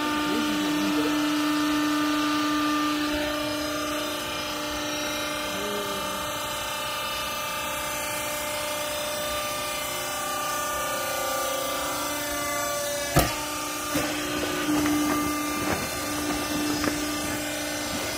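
Semi-automatic horizontal rag baler running, its hydraulic power unit giving a steady hum. About thirteen seconds in there is one sharp bang, followed by a few lighter knocks.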